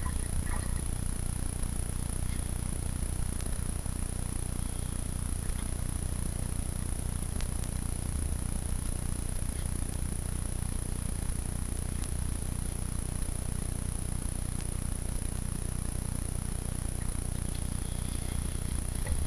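Steady low rumble of wind buffeting the microphone, with a faint, steady high-pitched whine above it.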